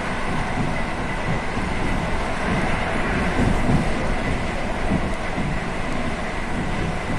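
ED4M electric multiple unit running along the track, heard from on board: a steady rumble of wheels and running gear with a thin, steady high tone above it.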